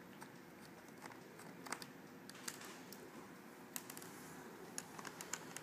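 Faint, irregular small clicks and ticks of a screwdriver and fingers working on a laptop's plastic screen bezel as the bezel screws are taken out.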